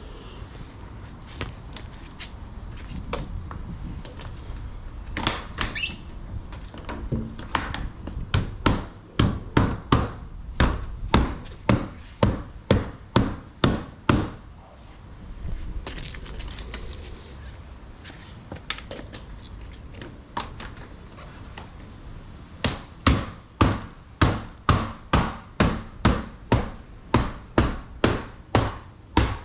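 Glazing beads being knocked into a uPVC door frame with a mallet to secure a new glass unit. There are two runs of regular sharp knocks, about two a second, with a few scattered knocks earlier.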